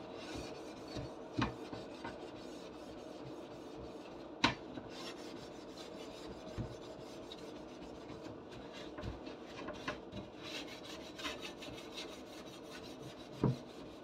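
Soap sponge scrubbing the metal bars of an oven rack: a steady rasping rub, with a few light knocks, the loudest about four seconds in and another near the end.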